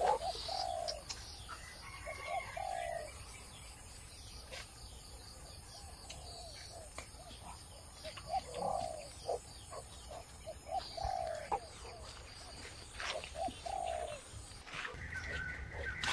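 Birds calling: short low calls in small clusters of two or three, repeated every few seconds, with a few faint higher chirps.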